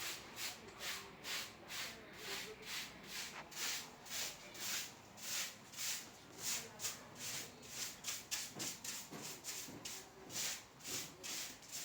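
Broom sweeping a floor in quick, even strokes, about three a second.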